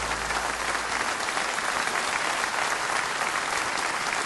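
Audience applauding steadily, with the last low held note of the song fading out about a second in.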